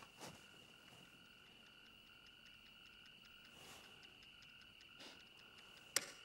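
Faint night chorus of frogs and insects: a steady high trill with a softer call pulsing a few times a second beneath it. One sharp click near the end.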